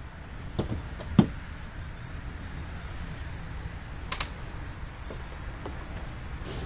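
Scattered clicks and knocks from handling the plastic housing and screws of a handheld leaf blower as it is taken apart, the loudest knock about a second in and a quick double click near the end.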